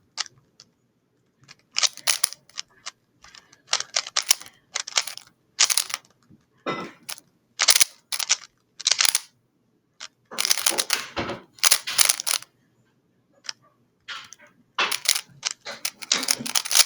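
Rubik's cube being turned fast in a speedsolve: rapid plastic clicking and clacking of the layers in bursts of about a second, with short pauses between them.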